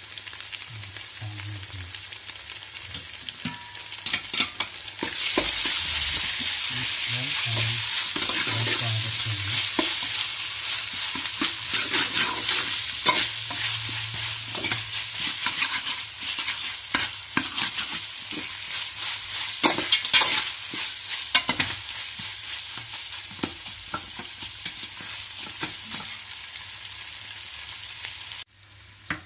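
Onions, green chillies and fresh herbs sizzling in hot oil in a metal pot while being stirred, with frequent scrapes and knocks against the pot. The sizzling gets louder about five seconds in and cuts off abruptly near the end.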